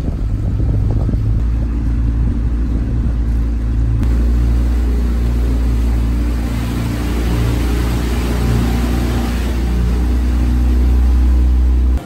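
Small outboard motor pushing an inflatable dinghy, running steadily under way with wind and water noise; its note steps to a different pitch about four seconds in.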